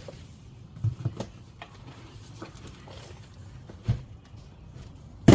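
Fender flare pieces being handled and set down: a few dull knocks over a low hum, the loudest right at the end.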